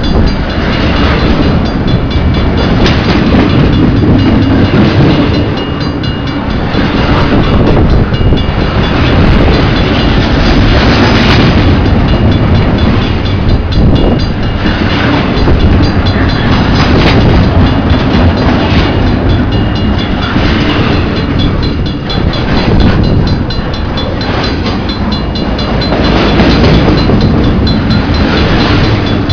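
CN train rolling through a level crossing: loud steady running of wheels on rail as the cars pass, the level dipping briefly every several seconds.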